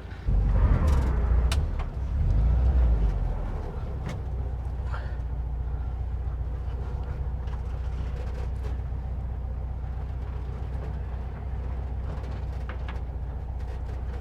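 Vintage split-window VW bus's air-cooled flat-four engine idling steadily. A louder low rumble runs through the first three or four seconds, with a few faint clicks.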